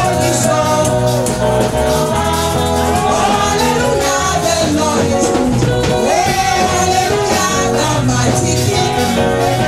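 Live gospel praise music: singers on microphones over an electric band with a steady beat and bass.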